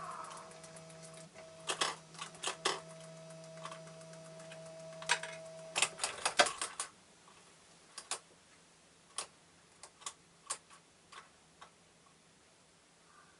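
Varied tit pecking at sunflower seeds in a feeder tray: sharp, irregular taps, a dense run of them about six seconds in, then single taps roughly a second apart. A steady hum stops about six seconds in.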